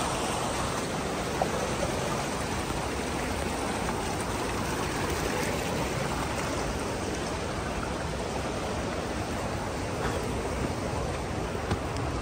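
Steady rushing of a fast-flowing mountain stream, with a couple of faint brief knocks.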